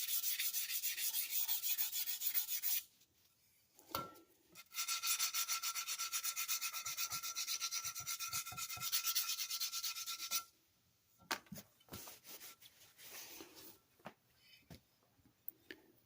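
220-grit sandpaper rubbed by hand in quick back-and-forth strokes over the corners of a cast-iron hand plane's sole, easing the sharp edges. Two spells of sanding with a short pause between, then a few light handling clicks near the end.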